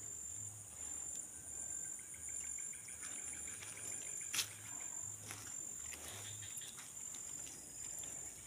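Insects chirping steadily in a high, pulsing trill, with one sharp click a little past the middle.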